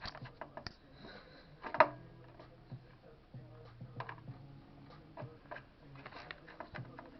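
Light clicks and knocks of small hard parts being handled and fitted, with one sharper knock about two seconds in.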